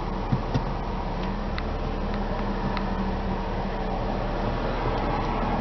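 Steady cabin hum of a 2006 BMW 325xi's 3-litre inline-six idling, heard from inside the car. Two sharp clicks come near the start and a few faint ticks follow over the next couple of seconds, from the radio controls being worked.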